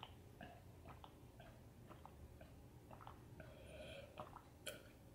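Faint chewing: soft, wet mouth clicks a couple of times a second, with one sharper click near the end.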